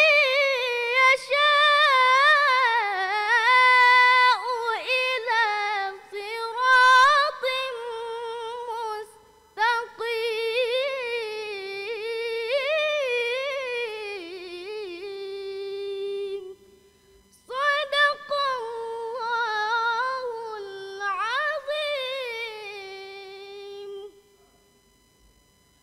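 A girl reciting the Quran solo in melodic tilawah style, with long held, ornamented notes and short pauses about 9 and 17 seconds in. The recitation ends about 24 seconds in.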